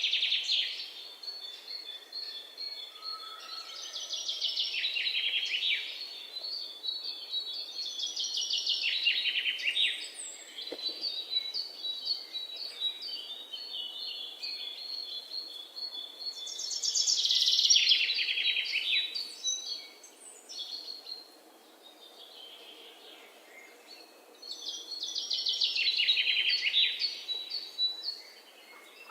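Songbirds singing. One bird repeats a rapid trill that falls in pitch and lasts about a second and a half, five times at intervals of a few seconds. Between the trills, strings of short, high chirps run at a steady pitch.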